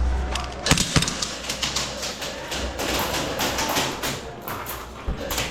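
Irregular sharp taps and knocks, with two distinct knocks about a second in and a denser scatter of clicks in the second half.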